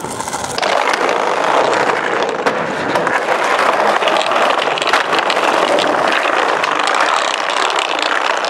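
Skateboard wheels rolling fast over a wooden plank deck: a steady loud rumble with quick clicks as the wheels cross the board joints.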